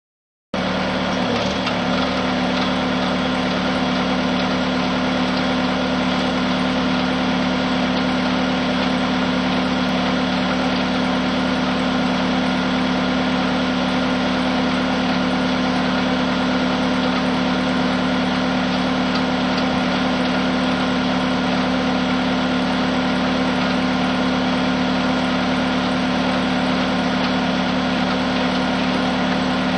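The carrier machine's engine running steadily while it hydraulically drives the rotor of an Alamo DCHR rotary ditcher, the rotor spinning freely in the air without cutting. A steady, even drone with no change in speed.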